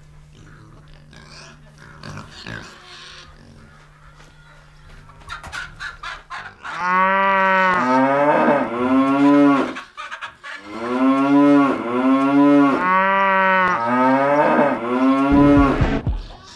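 Two long, loud moos, each with a pitch that wavers up and down. The first starts about seven seconds in and the second follows after a short break. Before them there is only a low steady hum.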